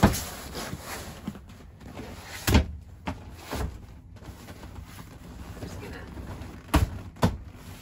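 Vinyl-covered seat cushions being set down and pushed into place on a lowered dinette table. Several thumps and knocks: one at the start, a few around the middle, and two close together near the end.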